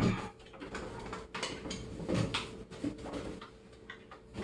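Scattered knocks, clicks and scrapes as an over-the-range microwave is hinged forward and worked off its wall mounting bracket.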